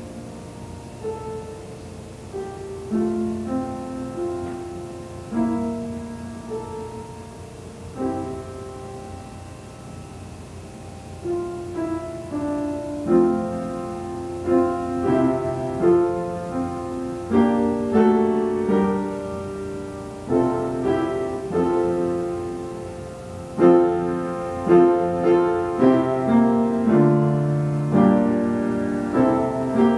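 Solo piano playing, gently at first and then louder with fuller chords from about halfway through, as it moves into the introduction of a hymn.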